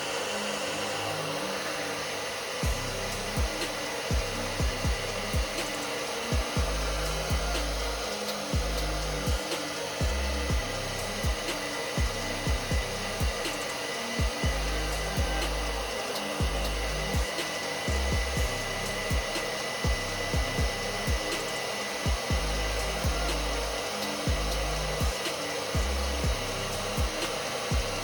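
Hair dryer blowing steadily on a hot setting, melting the ice that has built up on a refrigerator's freezer evaporator coils and fan. Background music with a steady low beat plays under it.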